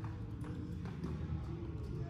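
Boxing gloves striking focus mitts several times in short, sharp pops, roughly half a second apart, over background music.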